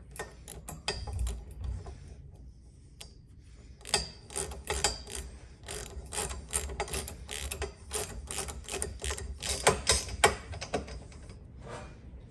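Hand socket ratchet clicking as a hex bolt is tightened down through a steel bar bracket. A few scattered clicks come first, then from about four seconds in a quick run of about four clicks a second.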